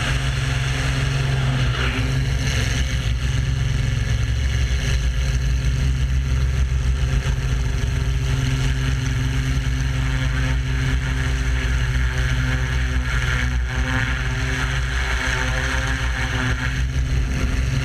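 Pitts Muscle Biplane's piston engine running steadily at power, heard from a camera mounted on the aircraft, with steady wind rush over the airframe.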